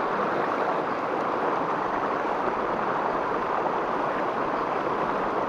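Water of a small river rushing steadily over rocks in a rapid.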